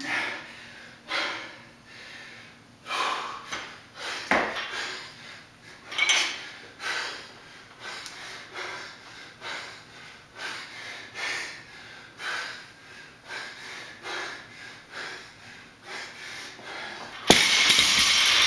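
Hard, rapid breathing of an exhausted athlete working barbell thrusters, a loud breath about every second, with a clank about four seconds in. Near the end comes a loud crash as the 100 lb barbell with rubber bumper plates is dropped onto the concrete floor.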